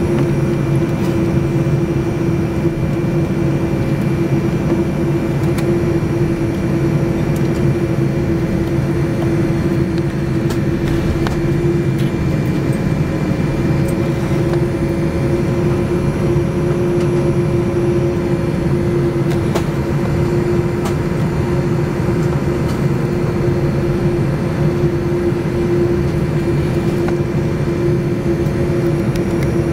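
Boeing 787-9 cabin noise during taxi: the jet engines running at idle give a steady rumble with a constant hum, and a few faint ticks come through now and then.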